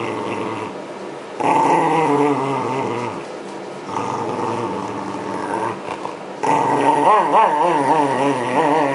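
Shiba Inu growling and snarling at the brush while being groomed, a protest at the brushing. It comes in several swelling bouts, the loudest near the end wavering up and down in pitch.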